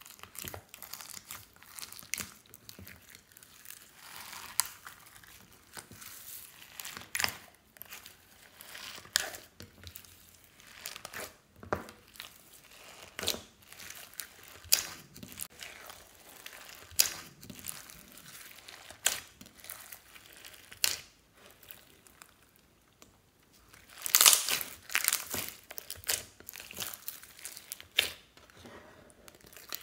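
Hands kneading and stretching a mass of clear pink slime loaded with sequins, beads and glitter: sticky clicks and sharp pops every second or so, with a thicker run of popping a few seconds before the end.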